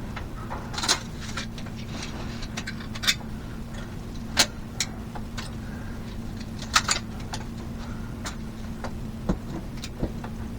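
Scattered light clicks and taps of small metal hardware and hand tools being handled during electrical installation work, over a steady low hum.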